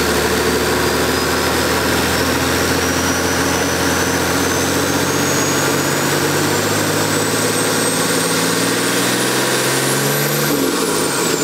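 Nissan Patrol's TD42 4.2-litre straight-six diesel, freshly turbocharged, running with its revs slowly creeping up and a high turbo whistle climbing steadily with them. About ten and a half seconds in the revs are let go, and the engine note and the whistle drop away quickly.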